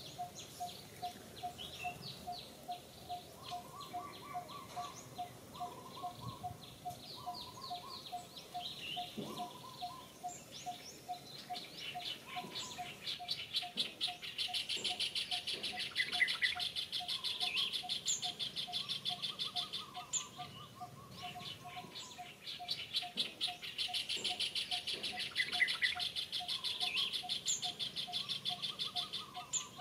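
Wild birds chirping in short high calls over a steady repeated note about three times a second. A loud, rapidly pulsing trill sets in about halfway through for several seconds and comes back near the end.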